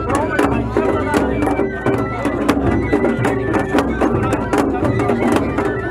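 Festival hayashi from a float: a large taiko drum beaten repeatedly with wooden sticks, with a high flute melody playing over the drumming.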